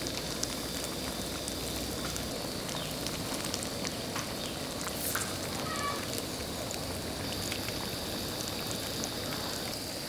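Batter-coated boiled eggs deep-frying in hot oil: a steady crackling sizzle.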